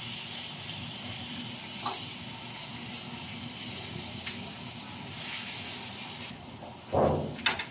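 Slices of meat sizzling steadily in a frying pan on a portable gas stove, with light clicks of a utensil turning them. Near the end, a thump and then a sharp clack.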